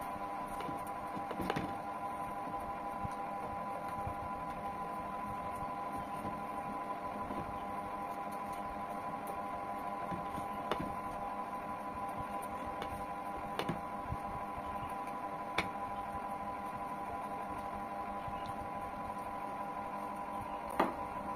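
Steady electrical hum made of several even tones, with a handful of faint, sharp clicks scattered through it from a knife peeling a mango.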